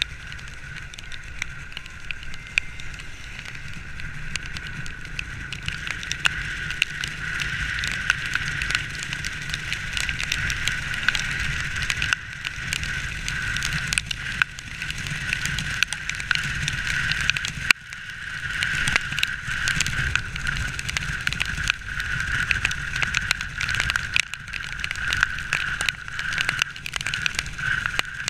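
Motorcycle riding on a wet road, heard from a body-mounted camera: the engine's low steady hum with dense crackling and wind on the microphone, and a steady mid-pitched whine that grows stronger in the second half.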